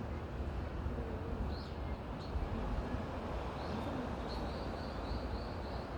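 Forest wind rushing, with a low rumble of wind on the microphone, while a small bird gives a few scattered high chirps and then, past the middle, a quick run of about seven short high notes.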